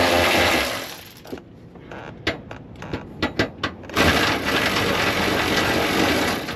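Power ratchet spinning bolts in on a car's rear suspension: a burst of steady whirring, then a few seconds of sharp metallic clicks and knocks from the tool and parts being handled, then a longer whirring run. The bolts are only being run in snug, not torqued.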